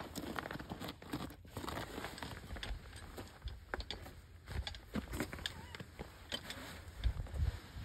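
Scattered metal clicks and scraping as a car jack's handle rod and hook are fitted and worked, with rustling and a few low thumps, the strongest near the end.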